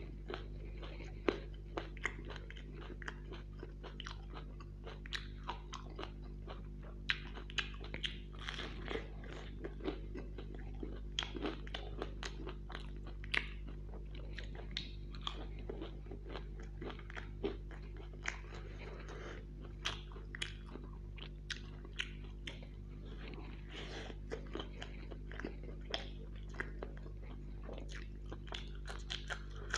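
Close-miked mouth sounds of eating fried pakoras and samosas dipped in ketchup, with crisp crunching bites and chewing. Near the end he bites into a raw green chilli. A steady low hum runs underneath.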